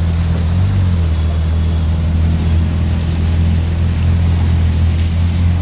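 Vehicle engine running with a steady low drone as it drives through a flooded street, with a constant rushing wash of water over it.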